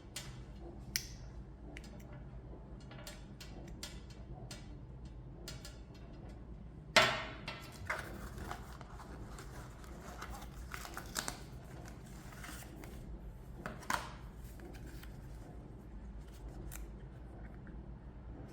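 Xiaomi Mi Band 8 and its packaging being handled during unboxing: scattered light clicks and rustles, with a loud sharp click about seven seconds in and another near fourteen seconds.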